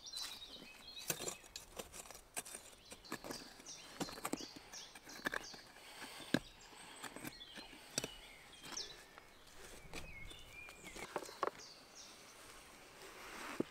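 Quiet outdoor ambience with scattered short high bird chirps and irregular light clicks and taps.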